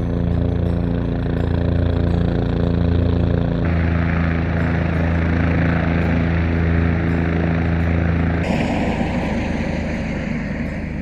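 Bell 407 helicopter running: a steady, loud machine hum with a low pulsing beat. The sound cuts abruptly to a different recording about three and a half seconds in, with more hiss, and again near the end of the first two-thirds to a rougher, noisier sound.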